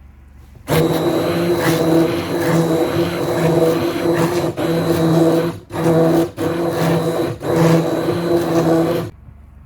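A small electric mixer runs with a steady motor whine, blending triethanolamine into a conditioner emulsion. It starts about a second in, cuts out briefly three times in the second half, and stops near the end.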